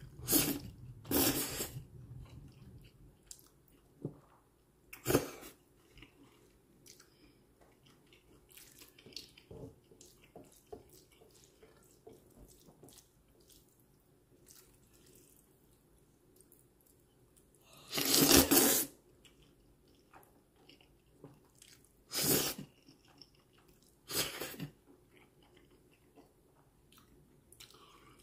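Jjajang ramen noodles slurped in short loud bursts, about six times, the longest about a second long roughly two-thirds through, with quiet chewing between.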